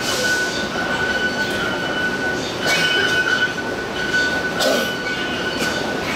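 Taipei Metro fare gates playing short piano-note chimes every second or two as passengers pass through, with sharp clacks of the gate flaps over a steady high tone.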